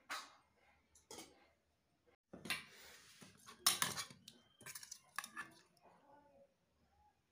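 Steel serving spoon scraping and clinking against stainless steel plates and a steel bowl as rice and chicken curry are dished out: a run of short scrapes and clinks, the loudest about three and a half seconds in.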